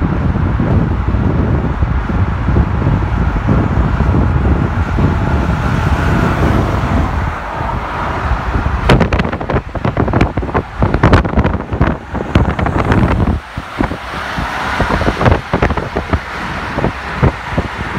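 Car on the move with road and wind noise: a steady low rumble, then from about halfway through many irregular sharp pops and knocks over an uneven rumble.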